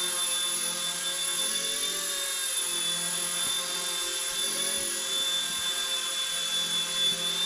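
Mini electric RC helicopter hovering, its motor and rotor giving a steady high-pitched whine that wavers slightly in pitch as the throttle is worked during a landing approach.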